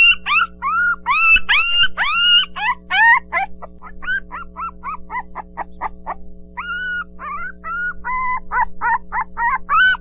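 Puppies yipping and whimpering: many short high-pitched calls in quick succession, several a second, with a steady low hum underneath.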